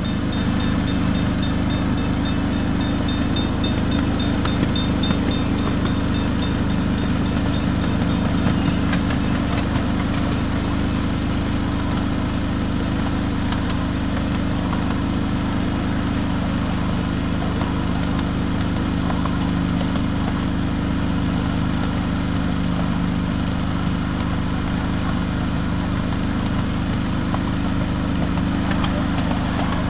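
The engine of a 7¼ inch gauge miniature diesel-outline locomotive running steadily as the train travels along the track. A quick, evenly repeating high ringing sounds over the first several seconds and then fades out.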